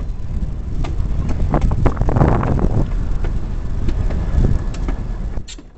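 Wind buffeting the microphone on a moving EMD GP9 diesel locomotive, over a low rumble of the running train, with a few scattered clicks. The sound fades away near the end.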